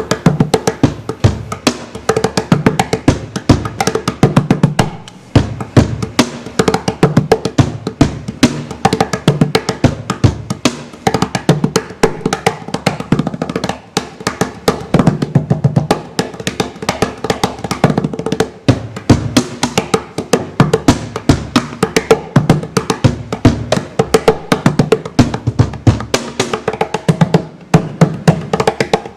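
A fast, busy percussion beat: rapid sharp snare-like hits over deep bass-drum thumps, played without a break.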